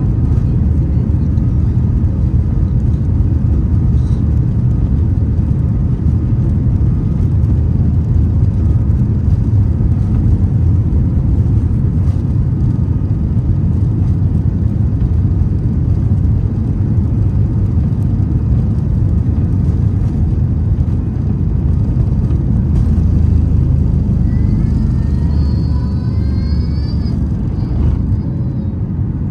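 Boeing 737 MAX 8's CFM LEAP-1B engines at takeoff thrust, with the rumble of the takeoff roll and climb-out heard from inside the cabin. The loud, steady low rumble carries through, with a faint rising whine near the end.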